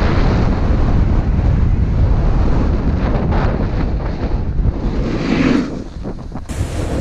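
Wind buffeting a GoPro action camera's microphone during a fast snowboard descent, with the board's edge scraping across snow in two hissing surges, about three and five seconds in.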